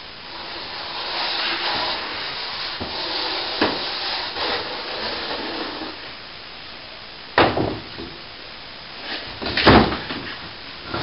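Broken plasterboard debris being scraped and shifted, then two loud knocks as pieces are dropped or struck, the second about ten seconds in the louder.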